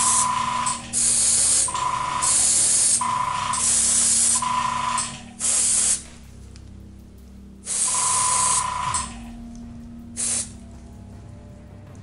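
Airbrush spraying paint in a series of short bursts of hiss, each a second or so long and the last one brief, several with a steady whistling tone; it lays a light coat from above onto the blue basecoat of a miniature.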